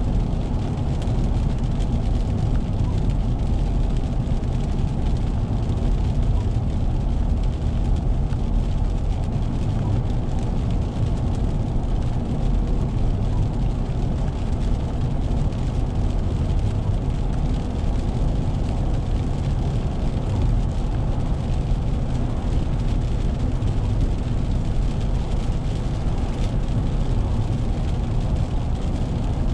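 Steady low rumble of a car driving at highway speed, heard inside the cabin: tyre and road noise on wet pavement with the engine running underneath.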